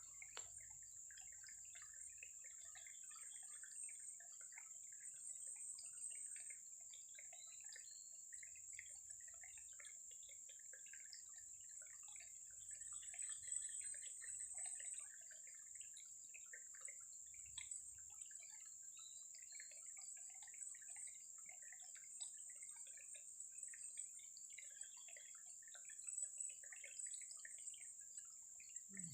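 Faint water dripping and trickling in many small, scattered ticks, over a steady high-pitched hum.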